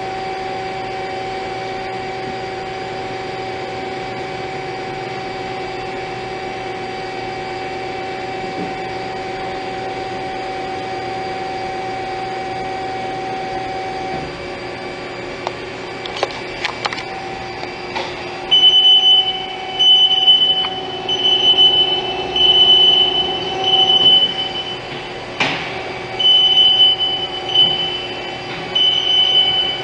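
2008 Haas SL-40T CNC lathe running: a steady hum with two even tones for about the first half. Then come a few sharp clicks, and from about two-thirds in, a string of loud high-pitched squeals, each about a second long, with short gaps between them.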